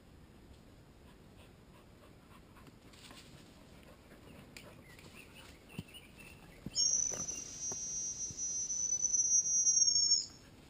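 An insect buzzing steadily at high pitch, starting suddenly past the middle and cutting off near the end, about three and a half seconds long.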